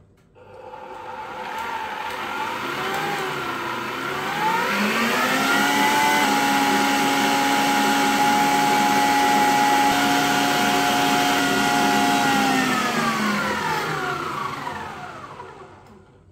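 Electric stand mixer with a wire whisk beating eggs and sugar until stiff. The motor whine climbs in pitch over the first few seconds as the speed is raised, holds steady at high speed, then winds down and fades near the end.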